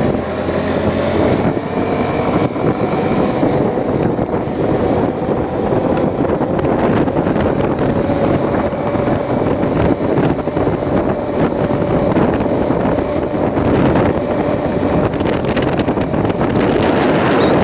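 Motorcycle engine running at a steady speed while riding, with wind rushing over the microphone.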